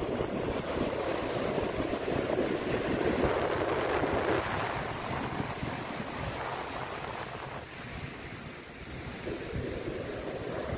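Ocean surf washing onto the shore: a continuous rush of waves that swells over the first few seconds, eases about three quarters of the way through, and builds again near the end.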